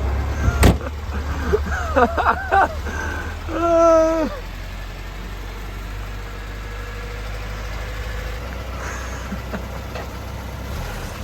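Steady low drone of a car's engine and road noise, heard from inside the car. There is a sharp click about half a second in and brief voice-like sounds in the first few seconds, including a short held tone around the four-second mark.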